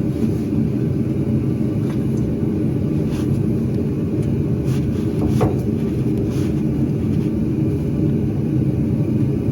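Steady low mechanical rumble, like a motor running close by, with a few faint clicks and knocks.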